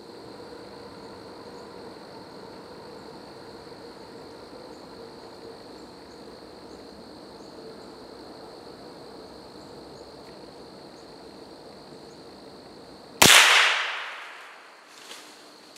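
A single hunting gunshot about 13 seconds in, sharp and loud, ringing away through the woods over a second or so, fired at a grey squirrel on a tree trunk.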